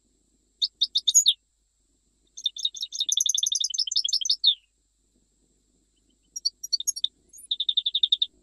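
A European goldfinch sings a Jijel-style song: three phrases of quick, high twittering, the middle one the longest. The last phrase ends in a fast, even trill.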